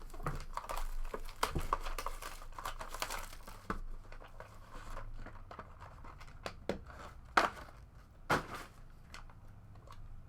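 Plastic wrapping on a box of trading cards crinkling and tearing as the box is opened, with irregular rustling and handling clicks, and two sharper snaps near the end.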